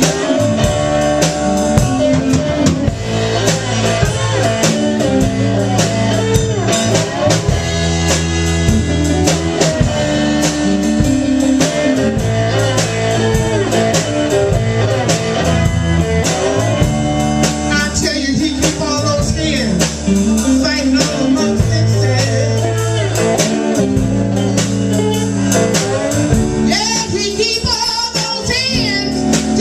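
Blues band playing with a steady beat: drum kit, a repeating bass line and guitar, with a singing voice coming in at times.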